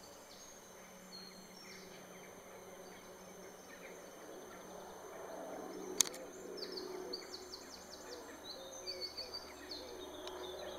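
Faint outdoor ambience: songbirds chirping, with a quick run of twittering notes in the second half, over a low steady hiss. A single sharp click about six seconds in.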